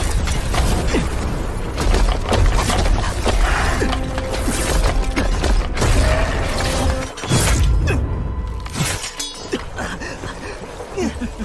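Animated fight-scene sound effects: repeated crashing, shattering impacts and rushing energy effects over dramatic background music, loudest in the first seven seconds and easing off after a brief drop.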